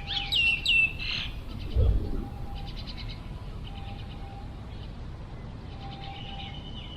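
Birds chirping outdoors. A run of loud, quick, downward-sliding whistled notes comes in the first second, then scattered rapid chirps. There is a short low thump about two seconds in, and a faint steady note recurs every couple of seconds.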